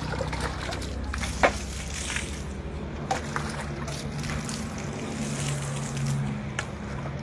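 Water scooped with a plastic bowl from a bin and splashed, in short sloshes and splatters over a steady low hum.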